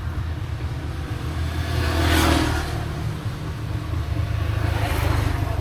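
Road traffic passing close by: a steady low engine rumble, with one vehicle swelling louder as it goes past about two seconds in.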